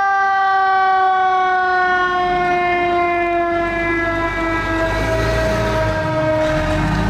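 Federal Q mechanical siren on a fire truck winding down, its wail sliding slowly and steadily lower in pitch and fading. Under it, the truck's Detroit Diesel engine rumbles louder from about two seconds in as the rig pulls away.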